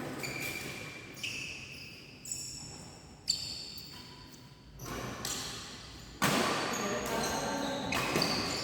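Badminton play on an indoor court: sneakers squeaking on the floor, with a few sharp racket hits on the shuttlecock about a second apart. The sound echoes in a large hall.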